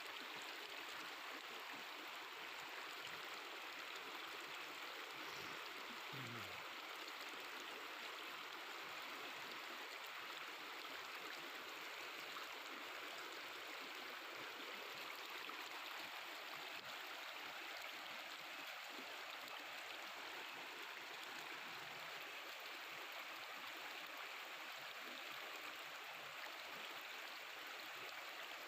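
Mountain river flowing, with a steady babbling of running water.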